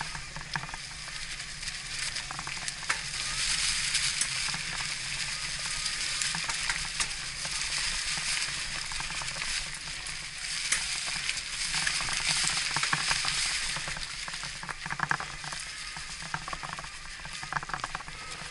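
E-mountain-bike tyres rolling over loose gravel and dirt: a steady crackling hiss with scattered clicks of stones, swelling louder twice.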